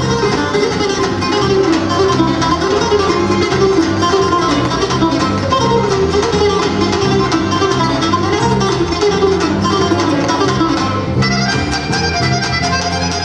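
Balkan folk orchestra playing a lively instrumental tune: guitars and tamburas plucking over accordions, violin, clarinet, double bass and tapan drum, with a steady repeating beat. About eleven seconds in, a brighter high part comes in over the ensemble.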